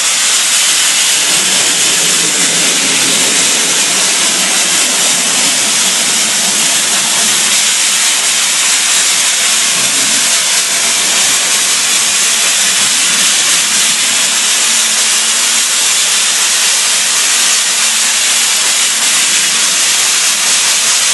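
Soda blasting nozzle spraying baking-soda media with compressed air: a loud, steady hiss that does not let up.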